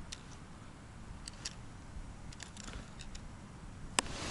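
Quiet with a few faint, light clicks scattered through, and one sharper click about four seconds in.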